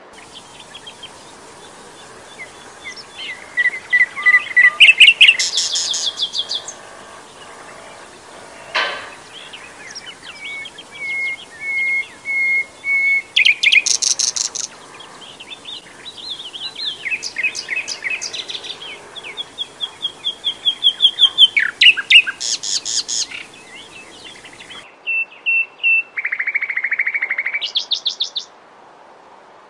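A plain olive-brown warbler singing a loud, varied song of repeated notes, fast rattling trills and sliding whistles, phrase after phrase with short pauses between. Near the end a buzzy trill follows.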